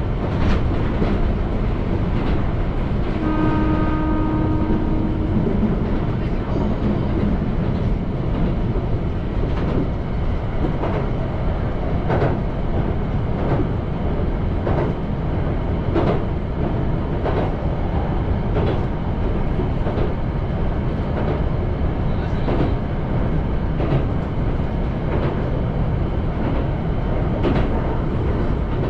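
Electric train running at speed, heard from the driver's cab: a steady rumble with repeated clacks as the wheels cross rail joints. An oncoming train passes at the very start, and a short steady tone sounds for under two seconds about three seconds in.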